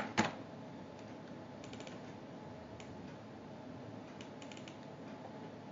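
Computer keyboard keys tapped: two sharp clicks at the start, then a few faint groups of quick key clicks.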